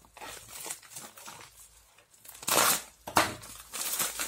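Plastic mailer bag being torn open by hand and crinkled. There are soft rustles first, then a loud rip about two and a half seconds in, a sharp snap just after, and more crinkling of the plastic near the end.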